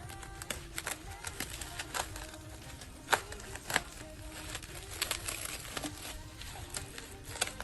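Paper and plastic album packaging being handled: irregular rustles and sharp clicks as the K-pop album and its inserts are unwrapped and turned over, with two louder clicks about three seconds in and just before four seconds.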